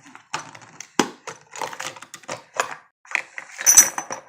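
Small metal meat-grinder parts clinking, knocking and rattling as they are unpacked and handled, in irregular short strikes with a louder cluster near the end.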